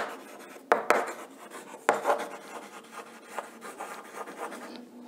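Chalk scratching on a blackboard as a word is written, with a few sharp taps where the chalk strikes the board.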